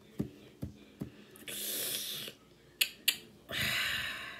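Mouth sounds: several sharp lip or tongue clicks and two short, breathy exhales.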